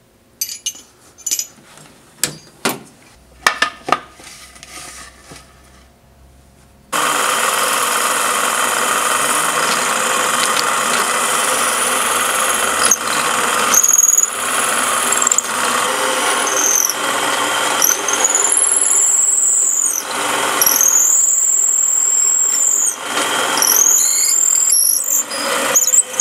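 Several metal clinks of drill bits being handled in a tool-chest drawer, then a drill press starts about seven seconds in and runs steadily, boring into a wooden duck call blank. From about halfway there are high squeals that rise and fall as the bit cuts into the wood.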